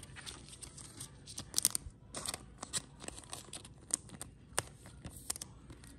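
Trading cards being slid into thin plastic card sleeves: scattered plastic crinkles and sharp little clicks.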